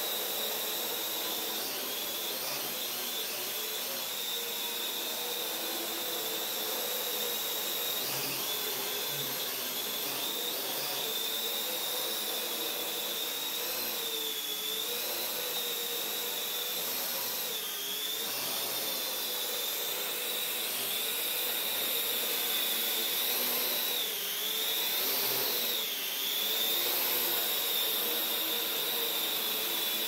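Parrot AR.Drone quadcopter's electric motors and propellers whining steadily as it flies, the pitch dipping and rising several times as it manoeuvres, most in the second half.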